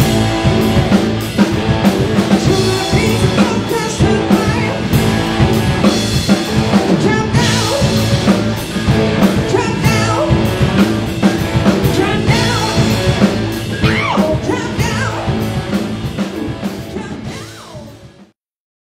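Rock band playing live: a woman singing over electric guitars and a drum kit. The music fades and stops just before the end.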